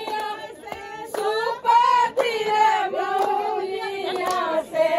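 A group of women singing a folk song together, with scattered hand claps.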